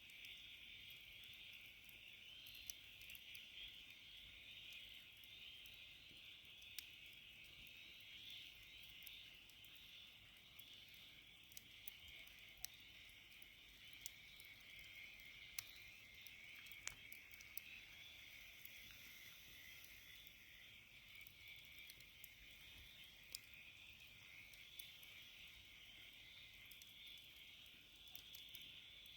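A steady, faint night-time chorus of crickets, with sharp crackles and pops from a wood fire every few seconds.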